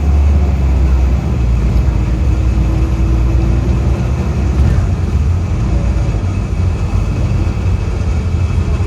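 Optare Solo midibus on the move, heard from inside: a steady low engine and road rumble.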